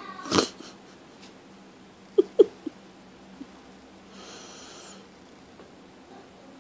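Kitten scrambling and pouncing on a bedspread: a sharp breathy huff just after the start, a quick run of three or four soft thumps about two seconds in, then a rustle of bedding.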